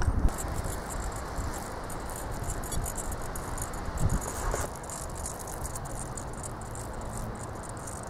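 Fast, high-pitched rattling and fluttering from a robot falcon ornithopter's film membrane wing and gear drive, heard close up through a camera mounted on the ornithopter, over a low wind rumble.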